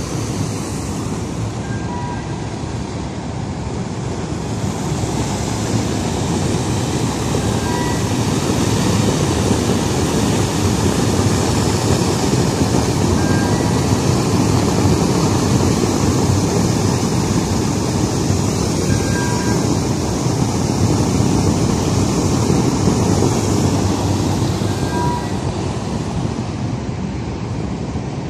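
Steady roar of an iron ore shiploader at work, with ore pouring from its chute into a bulk carrier's hold. A faint short beep repeats about every five to six seconds.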